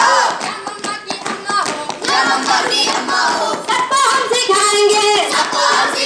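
Hands clapping and feet stamping in a rough marching rhythm, with voices singing over them.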